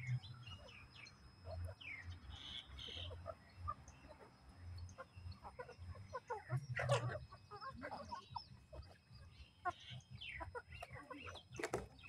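Flock of young chickens clucking and peeping as they feed, many short calls overlapping, with a louder sound about seven seconds in.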